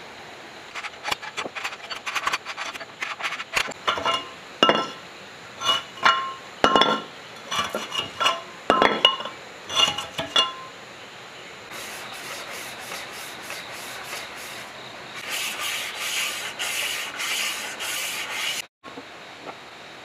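Rusty iron cylinder liners knocking and clinking with a metallic ring against a four-cylinder generator engine block as they are worked in the bores. About twelve seconds in, this changes to quick, even scraping or rubbing strokes on metal, which stop abruptly.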